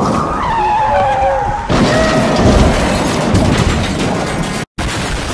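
Toboggan sled rumbling and scraping down its metal track, with clothing rubbing on the microphone and a drawn-out squeal that falls in pitch early on and then holds. The sound breaks off for an instant near the end.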